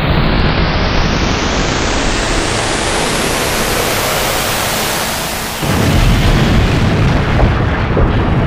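Trailer-style sound effect: a rush of noise sweeping steadily upward in pitch for about five seconds, then a sudden deep boom about two-thirds of the way in, followed by a low rumble.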